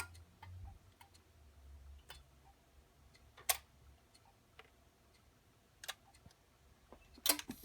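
Benjamin Miracord Elac 50H record changer giving a few isolated sharp clicks, one to two and a half seconds apart, the loudest near the end, over a low hum that dies away about two seconds in.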